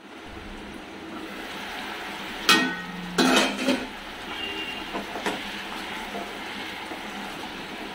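A stainless steel pan lid clanks twice as it is lifted off, about two and a half and three seconds in, then the mutton and potato gravy sizzles and bubbles in the open pan while a wooden spatula stirs it with light taps.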